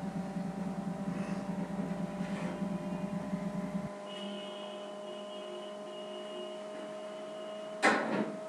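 A steady electrical-sounding hum with several fixed tones, whose low rumble cuts off abruptly about halfway through, then a single sharp knock near the end.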